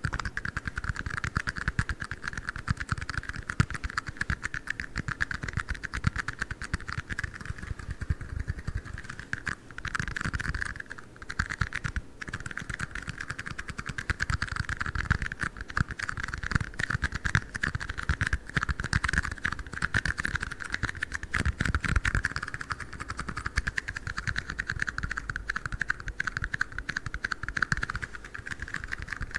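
Rapid, continuous tapping on red plastic cups, a fast run of small clicks with a steady hollow plastic ring.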